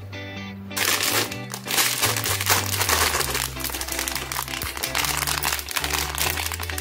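Crinkling of a plastic Cadbury Gems candy pouch as it is handled and pulled open, starting about a second in, over background music with a steady bass line.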